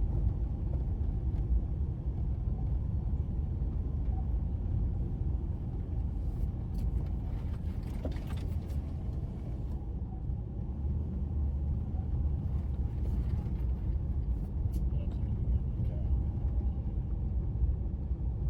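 A vehicle driving, heard from inside: a steady low rumble of engine and tyres.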